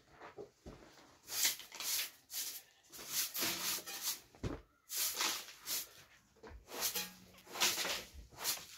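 Short hand broom sweeping an earthen floor: a run of brisk scratchy swishes, about two a second.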